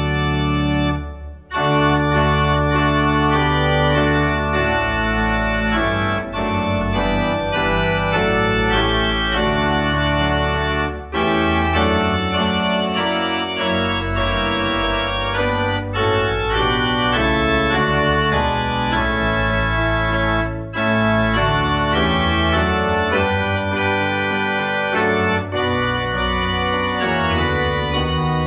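Organ playing a hymn tune in sustained chords, with a short break about a second in.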